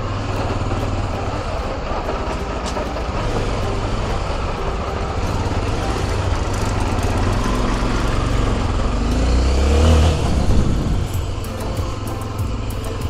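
A vehicle engine running under load with road and wind noise, swelling to its loudest with a brief rise in pitch about ten seconds in, then easing off.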